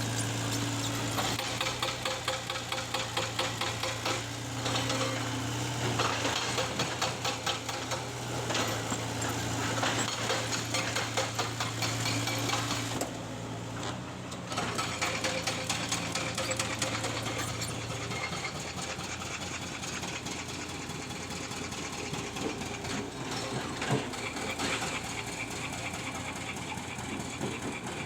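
Tracked excavator's diesel engine running with a steady hum, under a dense, rapid metallic rattling and clanking from work on its tracks. The hum drops away about two-thirds of the way through while the clatter carries on.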